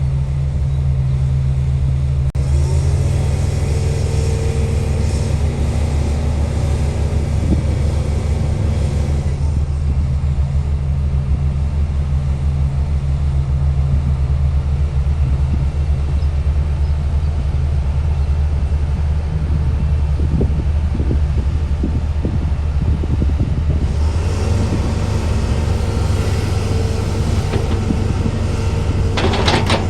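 Heavy machine engine running steadily with a low drone, with louder hissing noise over it for several seconds early on and again near the end.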